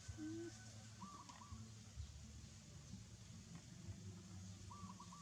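Faint short animal calls: a low wavering call just after the start, then two brief quavering chirps, about a second in and again near the end, over a low steady hum.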